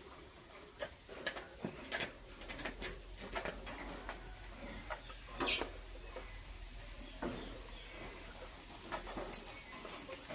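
Lovebirds making scattered short chirps among small clicks and taps, with one short, sharp high chirp about nine seconds in as the loudest sound.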